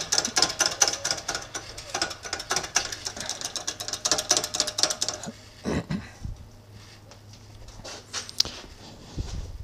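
Hydraulic shop press being worked to push the bull gear off a South Bend 13-inch lathe spindle: a rapid clattering from the press's jack that stops about five seconds in. Two dull thumps follow, one a second later and one near the end.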